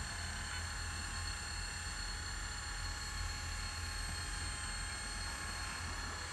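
Radio-controlled Hitachi tracked excavator working its arm and bucket, giving a steady low hum with a faint high-pitched whine above it.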